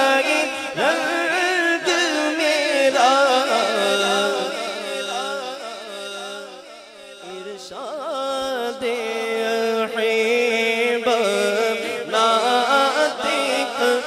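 A man singing a devotional naat into a handheld microphone, the melody held on long, wavering notes over a steady low tone. The voice sinks low around the middle and rises again about eight seconds in.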